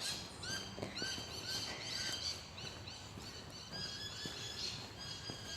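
Several small songbirds singing at once, a dense chorus of quick, repeated short chirps, with a few faint footsteps underneath.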